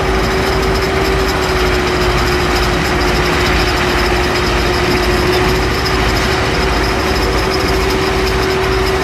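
Heavy truck engine running steadily, with a constant whine over an even low throb.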